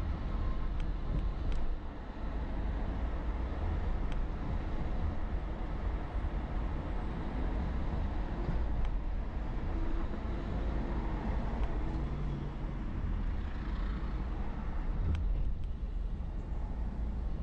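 Steady low rumble of a car driving in city traffic, heard from inside the cabin: road and engine noise, with a few faint ticks.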